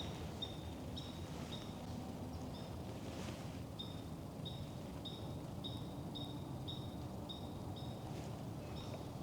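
Quiet woodland ambience with a short high chirp repeated steadily, about two to three times a second, over a low steady hiss.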